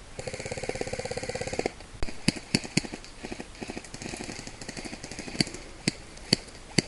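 Airsoft guns firing: a rapid full-auto burst of about a second and a half, followed by scattered single shots and a fainter rapid burst.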